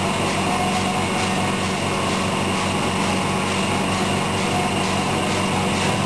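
Steady machine hum with hiss, a small motor or fan running, with a faint pulse in the hiss about twice a second.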